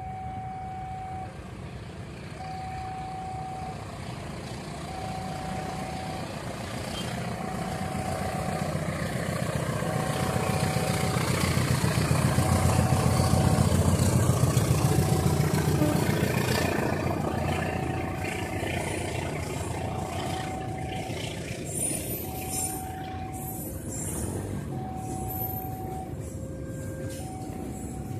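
A level-crossing warning signal sounds a steady tone in regular pulses, about one every two and a half seconds, while a long freight train of tank wagons passes. The train's low rumble builds to its loudest about halfway through and then eases. After that come the rattle and quick clacking of the wagons' wheels on the rails.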